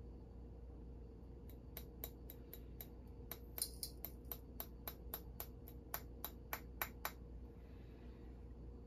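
Light, sharp taps in a quick even run, about twenty clicks at roughly four a second, from a small container of gold being tapped to knock the flakes out onto the scale for weighing.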